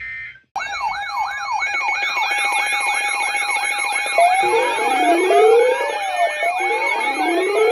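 A short burst of emergency alert data tones, then after a half-second gap many electronic siren tones start at once and overlap. They combine fast repeating yelp sweeps, slower rising-and-falling wails and a steady held tone, all loud.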